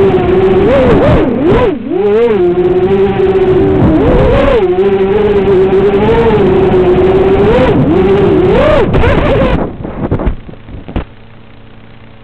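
FPV racing quadcopter's brushless motors whining, the pitch rising and falling with each throttle punch. Near the end the motors cut out and the quad crashes into tall grass with a few sharp knocks, leaving a low steady hum.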